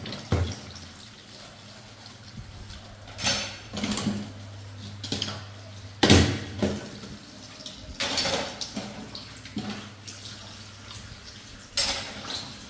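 Water running from a kitchen tap into a stainless steel sink during dishwashing, with ceramic bowls and plates clattering several times.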